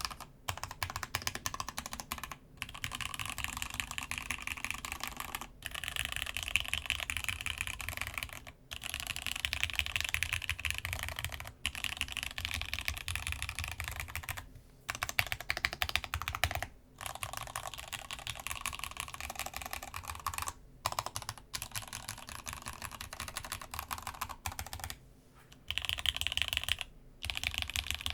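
Typing on a Masjewerke Muramasa mechanical keyboard with lubed, spring-swapped Gat X switches and DCD Gondor keycaps, on a thick desk mat. It is a fast, steady run of keystrokes, broken by short pauses every few seconds.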